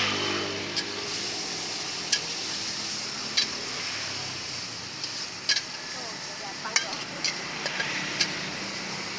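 Bakmie Jowo frying in a wok over a charcoal stove: a steady sizzle, with the metal spatula clanking sharply against the wok several times.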